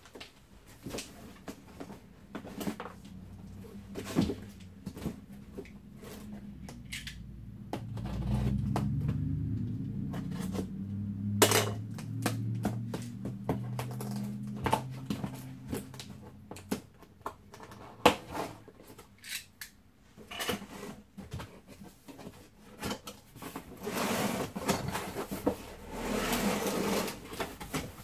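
Cardboard box and packaging being opened and handled: scattered clicks, knocks and thumps, with a low hum for several seconds in the middle and a stretch of rustling near the end.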